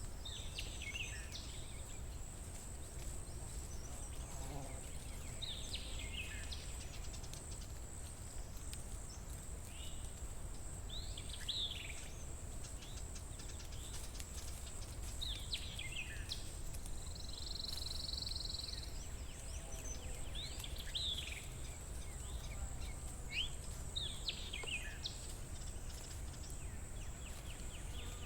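Forest ambience: a bird repeats a short, high, downward-sliding call about every four to five seconds, with one buzzy note midway, over a steady high-pitched insect drone and a low background rumble.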